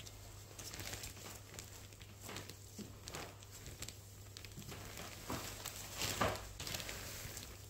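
Soft rustling and scattered small clicks from gloved hands and gauze handling and wiping a toe, the loudest rustle about six seconds in.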